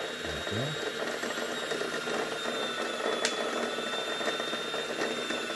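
Lion Indigo 14 home sewing machine running steadily on its newly replaced motor, a continuous high mechanical whine, with a single click about three seconds in.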